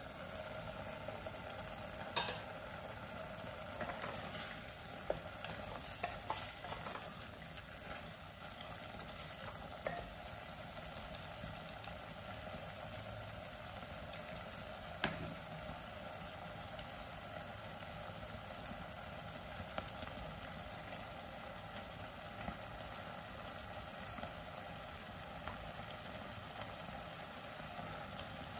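Chicken soup simmering in a pot, with a steady bubbling and sizzling. Occasional short clicks and knocks come from the lid and utensils against the pot, the loudest about halfway through.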